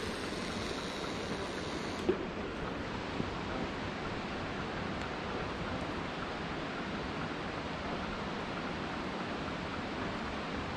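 Steady rush of water spilling down a dam spillway into the river pool below. A short click about two seconds in, and a fainter one about a second later.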